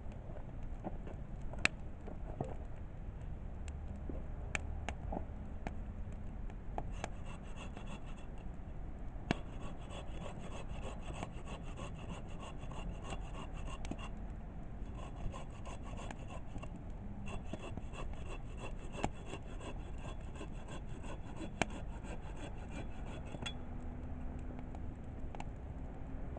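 Firewood burning in a campfire, crackling with occasional sharp pops. Through the middle a rapid, high, pulsing rasp comes and goes, stopping near the end.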